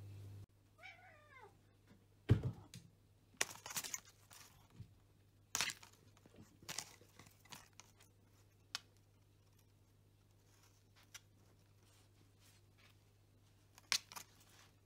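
A domestic cat gives one short meow, falling in pitch, about a second in, followed by a scatter of crinkles, rustles and knocks from a packaged cat teaser toy being handled and pawed at, the loudest a knock a little after two seconds.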